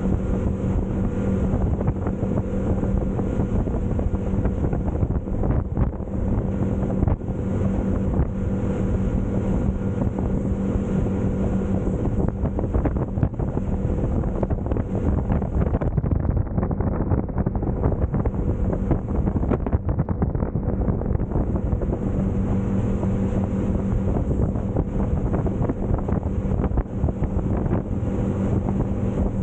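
A Clearwater 2508 center-console boat running underway: the engine holds a steady drone while wind buffets the microphone and water rushes past the hull.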